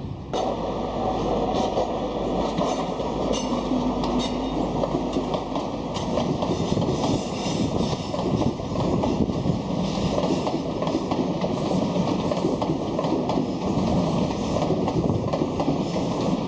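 A train passing on the tracks, with steady wheel-on-rail noise.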